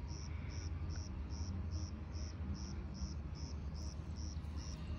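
A cricket chirping steadily, a high chirp repeated about two and a half times a second, over a low steady rumble.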